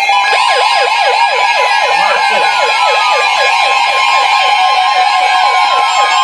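Weather alert radios sounding a tornado warning alert. A rapid, siren-like warble falls in pitch about five times a second over steady alarm tones near 1 kHz, while another tone slides slowly down in pitch.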